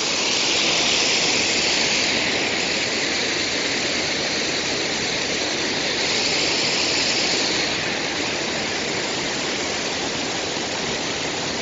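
Water pouring off the gristmill dam in a steady rushing splash, a little softer in the last few seconds.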